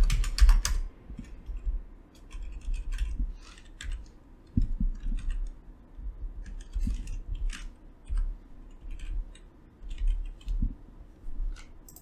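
Typing on a computer keyboard with mouse clicks: irregular sharp taps and clicks, a quick run of them in the first second, then scattered keystrokes with soft dull thuds beneath, as a program is edited on a PC.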